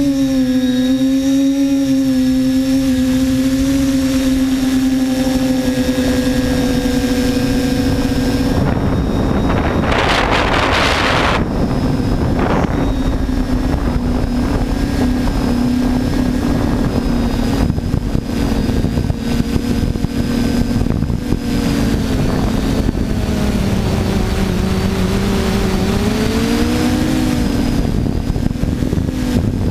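Brushless motors and propellers of a TBS Discovery quadcopter running steadily, heard from the onboard camera as a loud whine. A rush of noise across the whine about ten seconds in, and in the last third the pitch wavers, dipping and rising as the throttle changes.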